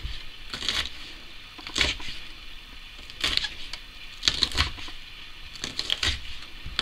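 Chef's knife chopping green chillies finely on a wooden cutting board: uneven knocks of the blade striking the board, often in quick pairs with pauses of about a second between.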